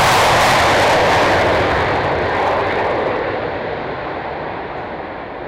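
Aermacchi MB-339 jet trainers taking off, loud jet engine roar at takeoff power that fades steadily as they climb away, from about two seconds in.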